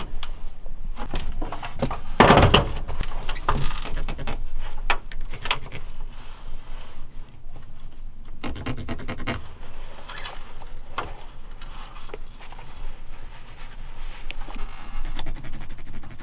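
Work noises on a stepladder and wooden ceiling joists: a thump about two seconds in, then scattered knocks, scratching and rubbing as hands and tools work along the framing, with a quick run of light ticks near the end.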